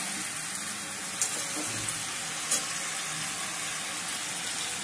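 Vegetables sizzling steadily in a steel pan as they are stirred with a metal spatula, with three light clicks of the spatula against the pan in the first half.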